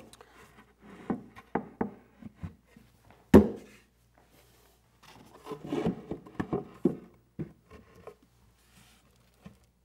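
Plywood and MDF case parts being handled and fitted together: irregular wooden knocks and taps with some sliding and rubbing, as the panels are set into their dadoes and rabbets. One sharp knock stands out about three and a half seconds in, and a quick cluster of taps follows around six seconds in.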